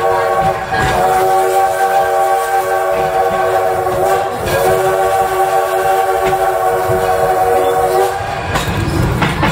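Chime steam whistle of the Edison steam locomotive sounding long blasts, a chord of several steady tones: the end of one blast, then two long blasts of about three and a half seconds each, stopping near the end. Under it runs the rumble of the moving train.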